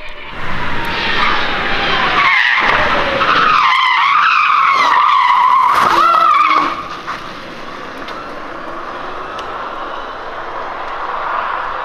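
Electric Opel Corsa-e rally car cornering hard, its tyres squealing with a wavering tone over the whine of its electric motor and the tyre noise. The sound cuts off sharply after about seven seconds, leaving lower road noise and a faint rising motor whine as the car pulls away.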